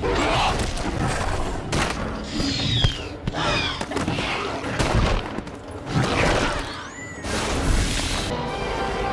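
Movie sound effects of a dinosaur rampage: heavy crashes and thuds, the Indominus rex's screeching roars with gliding pitch, and an explosion with a burst of fire about seven seconds in, mixed with the film's score.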